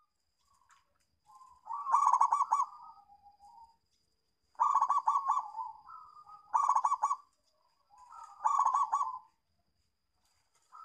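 Zebra dove (perkutut) singing its staccato cooing song: four bursts of rapid rolling coos about two seconds apart, with softer single coos between them.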